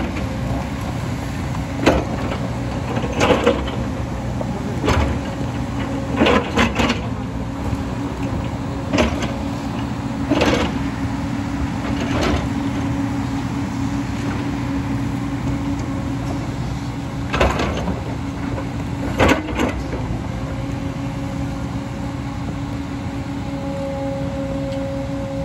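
JCB 225 LC excavator running steadily under load, with about a dozen sharp, irregular clanks and knocks as it works the landslide debris. A steady whine joins near the end.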